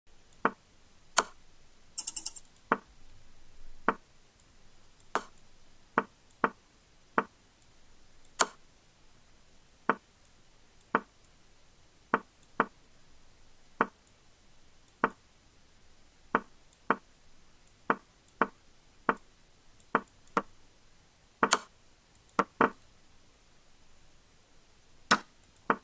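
Online chess move sounds: a sharp click with each piece move, about one a second and sometimes two in quick succession, as moves are played fast on low clocks.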